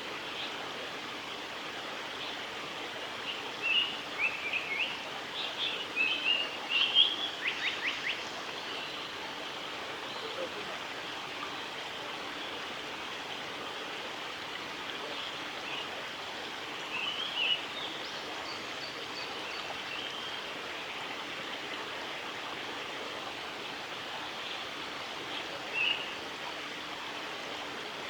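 Female Japanese paradise flycatcher singing in short clusters of high chirping notes: a run of phrases a few seconds in ending in a quick rattle, a shorter one partway through, and a brief call near the end, over a steady background hiss.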